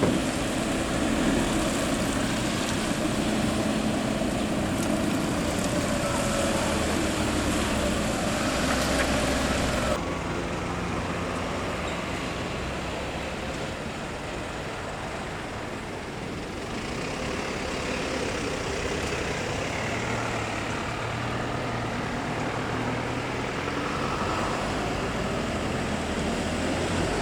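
Fire trucks driving past one after another in a convoy, engines and tyres making steady road noise. The sound changes abruptly about ten seconds in, becoming duller.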